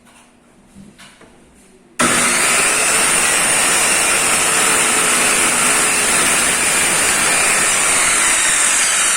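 A Total circular saw switches on abruptly about two seconds in and keeps running at a loud, steady whine. A few faint clicks come before it starts.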